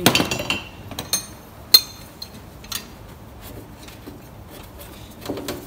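A 17 mm spanner clinking against the turbo oil feed union and nearby metal as the fitting is worked loose. There are a few sharp clinks in the first two seconds, the loudest near two seconds in, then quieter tool handling.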